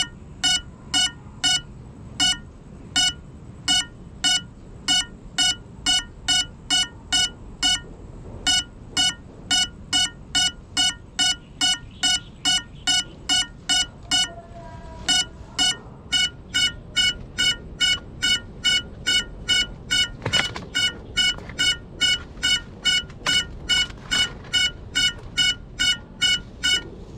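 A downed FPV drone's lost-model alarm beeping: short, high, identical beeps at about three a second, the signal that the quad is down and waiting to be found. The beeping pauses briefly twice.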